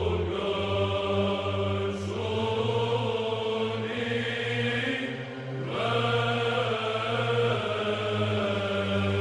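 Orthodox church chant: a sung melodic line over a steady, low held drone note, the melody moving to new pitches a couple of times.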